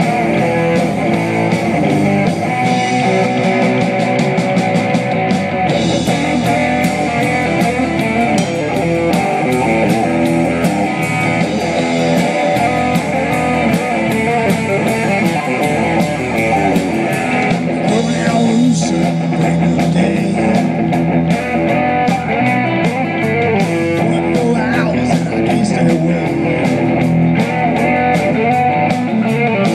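Live rock band playing, with guitar to the fore over a steady beat.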